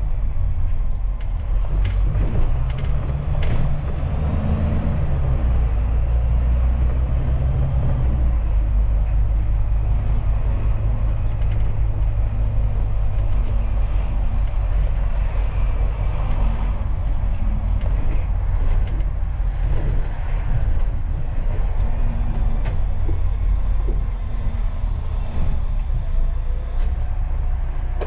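Steady low rumble of a double-decker bus's engine and running gear, heard from inside the moving bus. A thin high whine sounds for a few seconds near the end.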